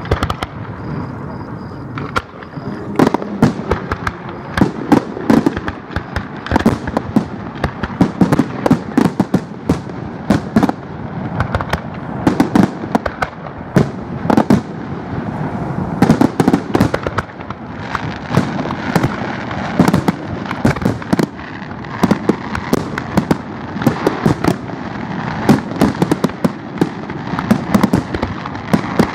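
Aerial fireworks shells bursting in quick succession, several sharp bangs a second overlapping over a continuous rumble.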